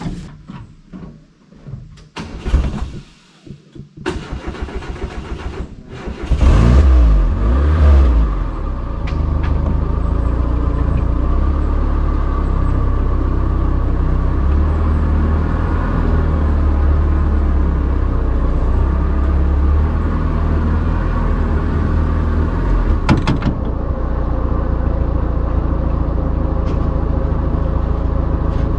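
Engine of a homemade all-terrain vehicle (karakat) being cranked for a couple of seconds, catching about six seconds in, revving briefly, then running steadily. There is one sharp clunk about two-thirds of the way through.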